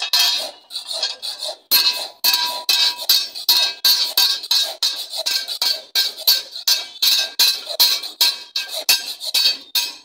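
Hand file rasping along the edge of a steel sickle blade clamped in a wooden block, in quick regular strokes about three a second. The thin blade rings with each stroke.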